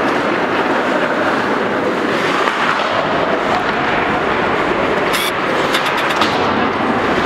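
Ice hockey play: a steady hiss of skate blades scraping the ice, with a quick run of sharp clacks of sticks and puck about five seconds in.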